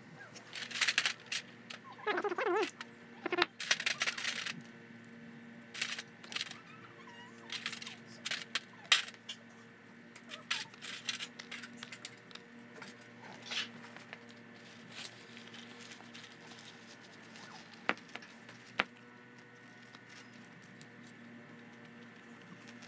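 Small steel parts of a disassembled diesel fuel injection pump clinking and clattering as they are handled in a metal washing tray and set down on a rag. The sound is a scatter of sharp clicks, busiest in the first few seconds, with one louder click about nine seconds in.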